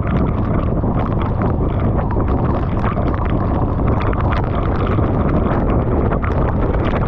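Steady wind noise on the microphone of a Honda Rebel 500 motorcycle riding in rain, with the bike's parallel-twin engine running steadily underneath. Many quick clicks of raindrops striking the microphone housing run through it.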